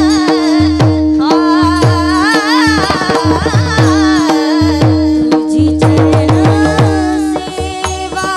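A woman singing a Marathi devotional abhang in Warkari bhajan style. She is backed by brass taal hand cymbals struck on the beat, strokes of a hand drum and a steady drone.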